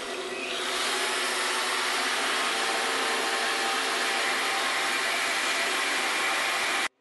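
Die grinder running with its grinding stone held against the teeth of a moving bandsaw blade, giving a steady grinding hiss over a faint motor whine. This is the blade being ground in motion to true its teeth and cut down blade flutter. The sound cuts off abruptly near the end.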